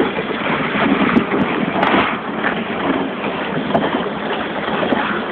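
Steady wind rushing over the microphone, mixed with the wash of water around a small pleasure boat moving on the river.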